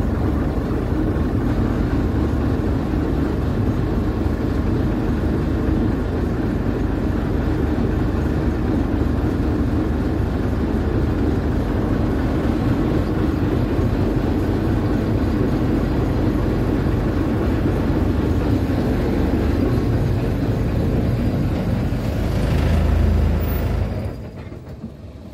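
A river tour boat's engine running steadily under way. It swells briefly, then drops away sharply near the end as the boat slows.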